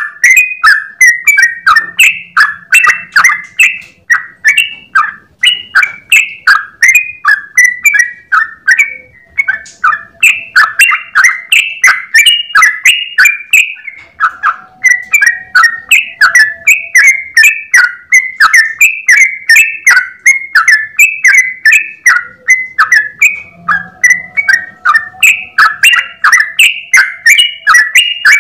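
Sooty-headed bulbul singing a long, rapid, unbroken run of short chattering notes, several a second, with a brief pause about halfway through.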